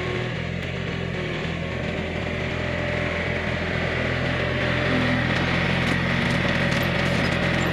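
John Deere 110 backhoe's diesel engine running steadily, picking up a little about four to five seconds in.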